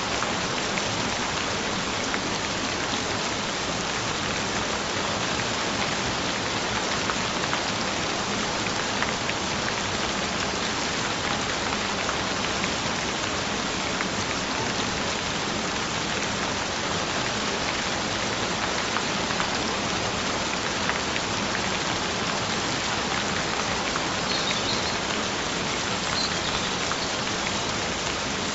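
Gentle rain falling steadily, an even patter and hiss that never changes in level.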